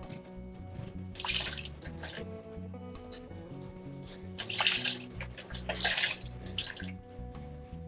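Background music with a steady bass line, twice broken by a loud rushing hiss lasting about a second and then about two and a half seconds, like water running from a tap or a surface being scraped.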